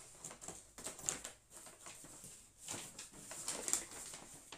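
Crinkly rustling and handling of shopping bags and packaging, in irregular bursts.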